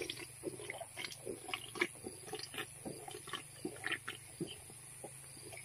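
A man gulping cold beer from a can: a run of faint, irregular swallows and small wet mouth sounds, a few each second.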